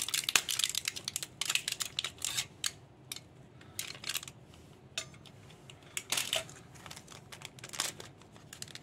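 Solid fuel tablets being unwrapped from their packaging: a run of crinkling and clicking in bursts, with short pauses between.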